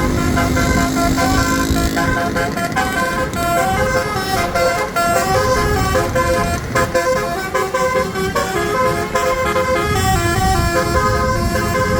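Basuri telolet musical air horn on an MSM Asyrof bus playing a quick tune of short multi-tone notes, over continuous engine and road noise.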